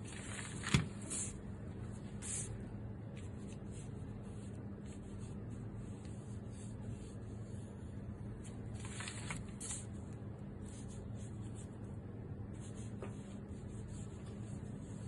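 Quiet room with a steady low hum, a sharp click about a second in, and soft scratchy swishes of a calligraphy brush dragging ink across paper.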